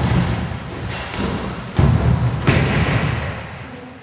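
Heavy thuds of two people sparring on gym mats: a loud impact right at the start and more about two seconds in as one fighter is taken down onto the mats.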